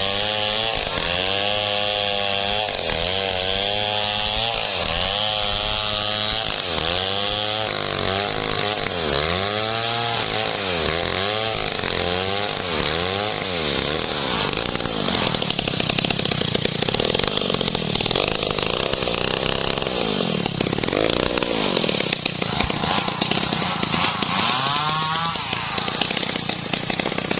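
Stihl MS 070 two-stroke chainsaw running, its engine pitch rising and falling about once a second. About halfway through it turns louder and rougher, with a couple more pitch swings near the end.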